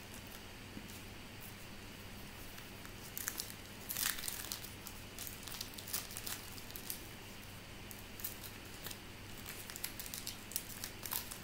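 Baseball-card pack wrapper crinkling and cards being handled, in scattered short crackles with a louder cluster about three to four seconds in.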